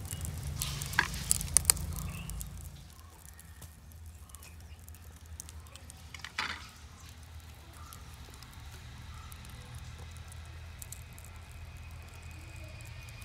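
Wood fire in a stove crackling and hissing under oil-rubbed brinjals roasting whole on the flames, with fine ticking throughout. A few sharp pops come in the first two seconds, and one louder crack about six and a half seconds in.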